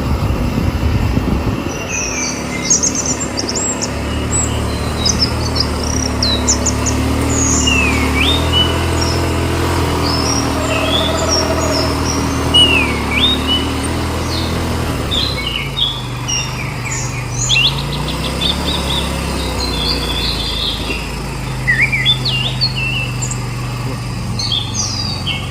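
ATV engine running, its pitch shifting a few times, with one rising glide near two-thirds of the way through, while birds chirp throughout.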